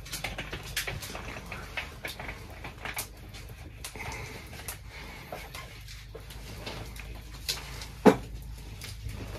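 Scattered clicks and knocks of objects being handled, with one loud knock about eight seconds in, over a steady low hum.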